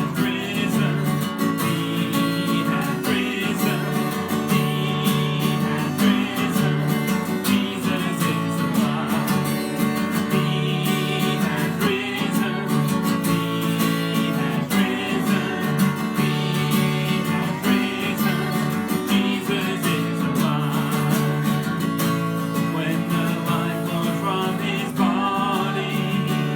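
Music: the instrumental introduction of an Easter worship song, led by strummed acoustic guitar, before the singing begins.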